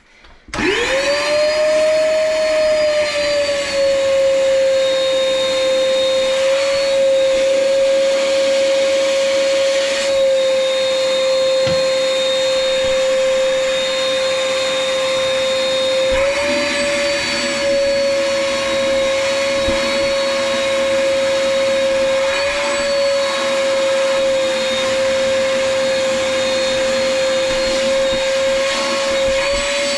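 Wet/dry shop vacuum switched on and spinning up about half a second in, then running steadily with a high whine. Its pitch dips and recovers a few times as its load changes, as when the remaining water is sucked out of a toilet before the toilet is pulled.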